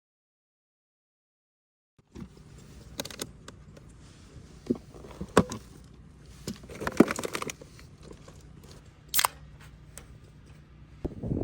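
Dead silence for about two seconds, then a run of scattered clicks, taps and short rustles, as of small objects being handled, over a low steady hum.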